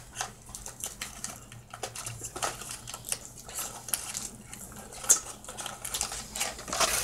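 Irregular small clicks and crackles of a crab shell being picked apart by hand while eating, with one sharper crack about five seconds in.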